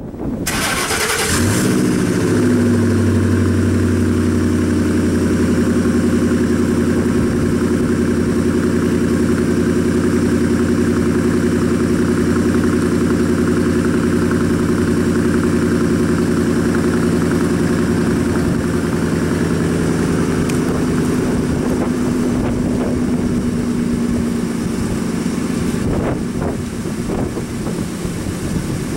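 2004 Ford F-150's 5.4 L three-valve Triton V8 starting through a Corsa cat-back exhaust. It catches within about a second with a short flare, then settles into a steady, deep fast idle that drops a little lower about twenty seconds in. Vapour from the tailpipe marks it as a cold start.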